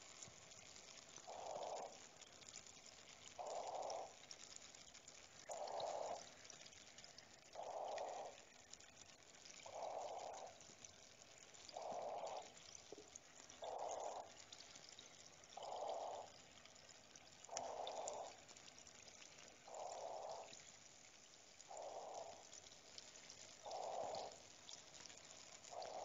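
Faint water sounds: a steady hiss of water with a drip repeating evenly about every two seconds.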